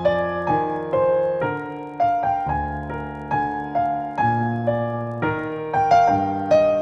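Solo piano music at a slow, gentle pace, single melody notes about two a second over held bass notes.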